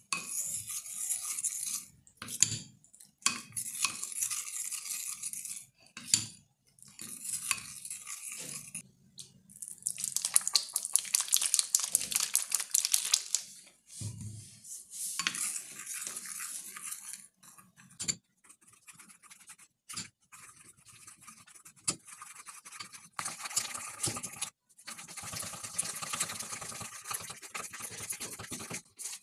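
Plastic spoon stirring a slime mixture in a glass bowl, scraping against the glass in repeated spells with short pauses between them. The mixture is thickening into slime as it is stirred.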